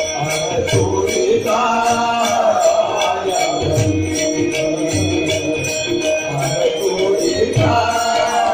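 Marathi bhajan music: small hand cymbals (taal) clash in a steady rhythm over low drum beats. A melody line comes in about one and a half seconds in and again near the end.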